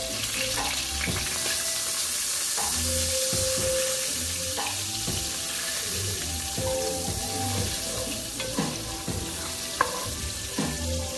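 Butter spread melting and sizzling in hot olive oil in a Dutch oven on medium heat, while a wooden spoon stirs it, with occasional light knocks of the spoon against the pot.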